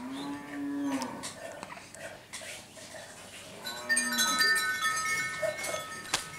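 A livestock animal lowing twice: a long call of about a second at the start, and a shorter one about four seconds in. After the second call come several steady high-pitched tones lasting about two seconds.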